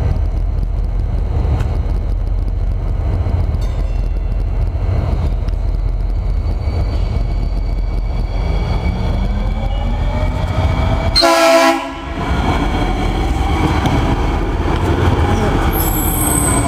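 Hudson-Bergen Light Rail train sounding one short horn blast about eleven seconds in, over a steady low rumble and the train's running noise, with a whine that rises and falls. A brief high-pitched squeal comes near the end.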